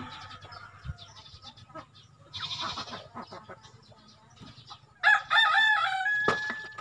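A native rooster crows once, starting about five seconds in and lasting just over a second, with a sharp knock just after the crow.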